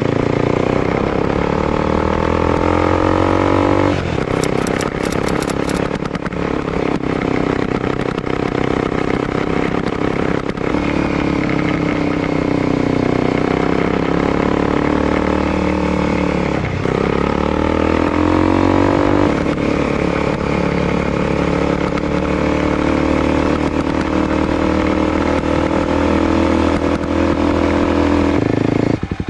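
Sport motorcycle engine running under way, its pitch climbing and falling with the throttle, with a few sudden drops and re-climbs, over steady wind noise.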